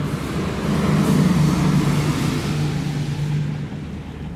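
A motor vehicle's engine running close by, swelling about a second in and fading toward the end.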